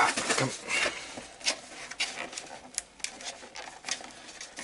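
Cardboard packaging and a fabric tool bag being handled: irregular rustles and small clicks, busiest in the first second, then sparser and fainter.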